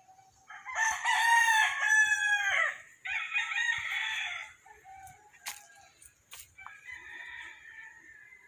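Loud animal calls: a long pitched call about a second in that falls away at its end, then a rougher call, then fainter calls later. Two sharp clicks come between them.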